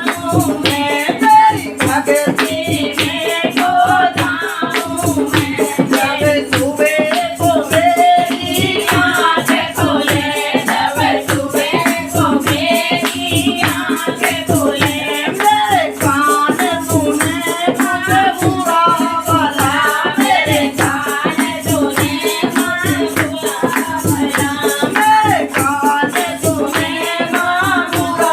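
Hindi devotional bhajan sung over a steady hand-percussion beat with jingling rattles.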